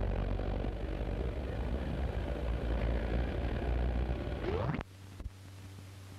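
Steady low rumble and hiss of an early sound-film recording, with no speech. About four and a half seconds in, a short rising whine is heard, then the sound drops to a faint low hum, as at the end of a take.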